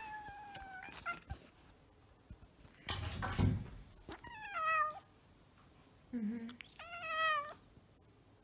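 Domestic tabby cat meowing three times: a level call at the start, then two calls that rise and fall in pitch about four and seven seconds in. A short muffled noise comes between the first and second meow.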